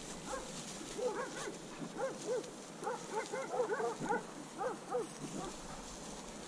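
English springer spaniel whining and yipping in a quick run of short rising-and-falling cries, several a second, from about a second in until about five and a half seconds.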